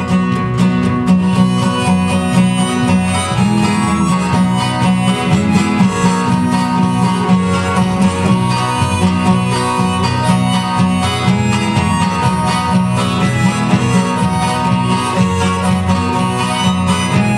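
Live country-style instrumental: a harmonica in a neck rack plays the melody over a strummed acoustic guitar, with keyboard and bass guitar underneath.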